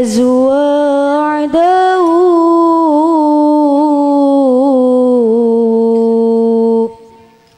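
A young woman's solo voice singing unaccompanied into a microphone: long, held, melismatic lines of Islamic sholawat, with a short break for breath about a second and a half in. The held note ends sharply near the end.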